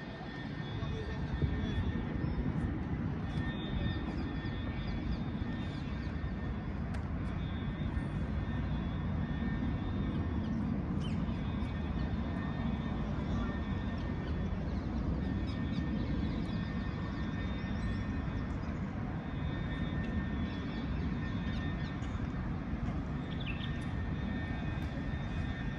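Open-air ambience: a steady low rumble that holds an even level throughout, with faint high chirps over it.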